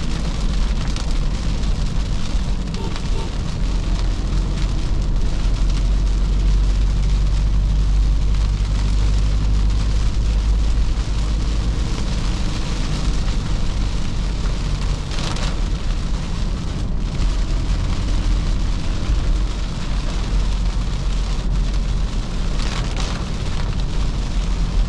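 Toyota Fortuner's 3.0 L four-cylinder turbodiesel running as the SUV drives on a wet road in rain: a steady low rumble under an even hiss of rain and tyre spray.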